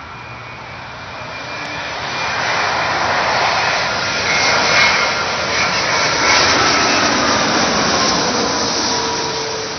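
Jet engines of an ANA Boeing 787 Dreamliner on final approach with its landing gear down, passing low overhead. A rushing jet noise builds over the first couple of seconds, stays loud through the middle and eases near the end, with a whine that slides down in pitch as the plane goes by.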